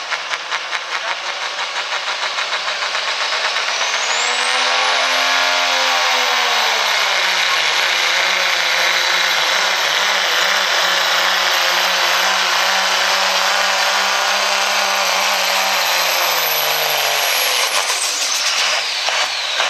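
Turbocharged diesel pickup truck pulling a sled at full throttle. The engine runs hard, and a high-pitched turbo whistle rises steeply about four seconds in, holds steady, then falls away near the end.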